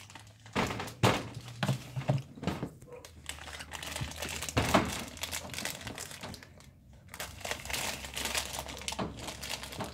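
Irregular crinkling and light knocks of a plastic cup being handled close to the microphone.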